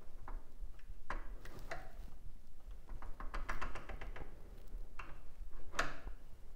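Small metallic clicks and taps from hardware on a mini bike's clutch band brake as its cable adjustment is backed off slightly, with a quick run of rapid ticks about three and a half seconds in and a sharper click near the end.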